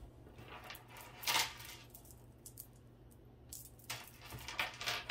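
Costume jewelry clinking and rattling as pieces are picked through by hand. There is one louder clatter about a second in, then a run of small clicks and rattles near the end.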